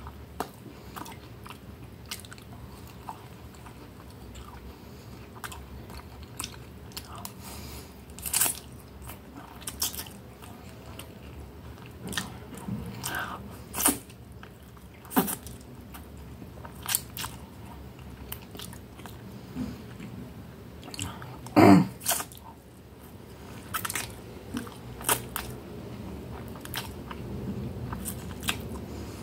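Close-up eating sounds: chewing and slurping spaghetti, with many short, wet mouth clicks scattered throughout. One louder mouth noise stands out a little over twenty seconds in.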